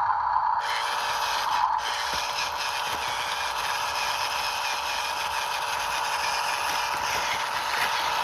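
Electric gear motors of a remote-control toy JCB 3DX backhoe loader running steadily, with a whirring, ratcheting plastic-gear noise.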